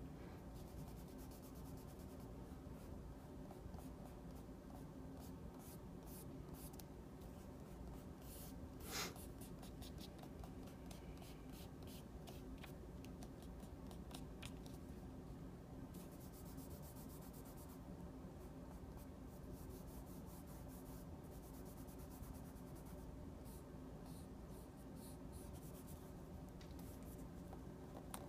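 Graphite pencil scratching on paper in short strokes and stretches of shading, with one louder stroke about nine seconds in, over a faint steady hum.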